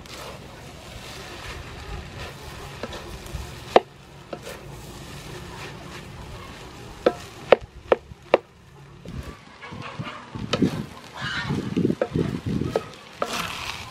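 A wooden spatula stirring and tossing fried rice in a metal wok over a steady frying sizzle. It knocks sharply against the wok about five times around the middle, then scrapes and turns the rice roughly near the end.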